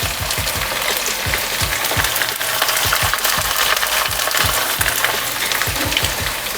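Marinated chicken pieces deep-frying in hot oil: a steady sizzle with dense crackling and popping.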